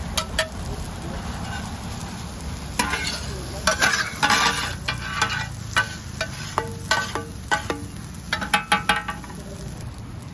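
Two metal spatulas scraping and clanking against a large, shallow iron pan as pad thai noodles are tossed, over the steady sizzle of frying. The strikes come in quick runs, thickest around the middle and again near the end, some leaving a short metallic ring.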